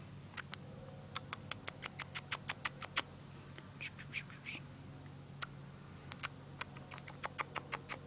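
Quick runs of small clicks and smacks as a cockatiel's beak nibbles at a person's pursed lips in a beak kiss: one run from about a second in, another from about six seconds.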